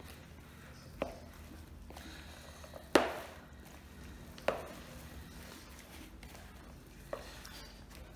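Gloved hands working sausage meat and cheese in a plastic bowl, giving four sharp knocks of the mass against the bowl, the loudest about three seconds in.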